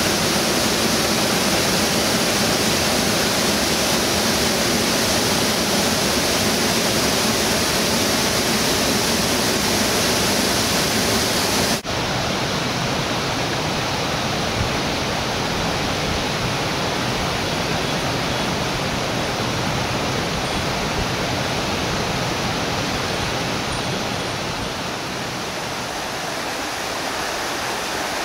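Steady rush of the Vis river's cascades pouring over rock ledges. About twelve seconds in it cuts suddenly to a slightly quieter, duller flow of river water.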